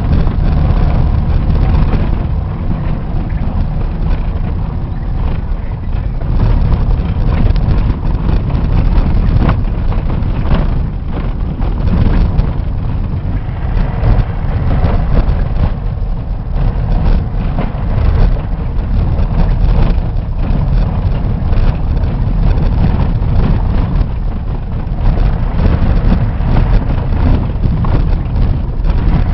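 A moving road vehicle, a loud steady low rumble of engine and road noise broken by frequent small knocks and rattles.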